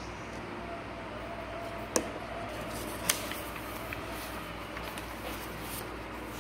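Sheets of paper rustling as they are lifted and laid on a desk, with two sharp clicks about two and three seconds in, over a steady background hum.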